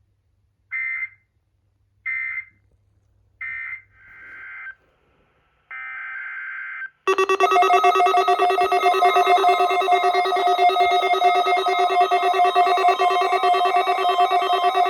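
Emergency Alert System end-of-message data bursts: three short electronic squawks about a second apart, then two more data squawks. About seven seconds in, a loud, steady buzzing alert tone starts.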